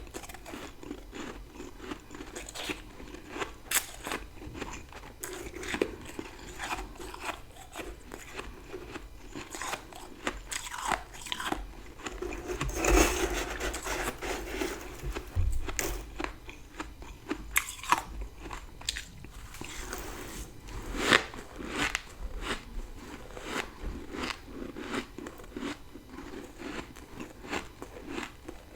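Close-up crunching and chewing of dry freezer frost, big bites cracking between the teeth in a run of uneven crisp crunches. The loudest crunches come about halfway through and again about two-thirds of the way in.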